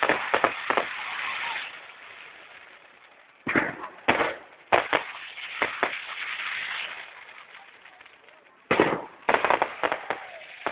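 Aerial firework shells bursting in three rapid volleys of sharp bangs: one at the start, one about three and a half seconds in, and one near the end. Each volley trails off in a crackling hiss as the stars burn out.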